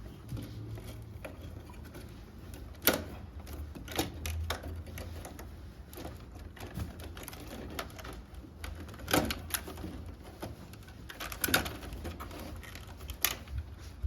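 Scattered sharp clicks and knocks of hard parts being handled during work on a ceiling-cassette air conditioner, over a low steady hum, a few clicks in quick pairs or clusters.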